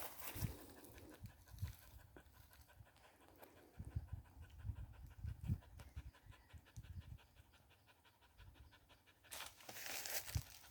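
A dog panting in quick, even breaths, with a few low thumps, and a burst of rustling about nine seconds in.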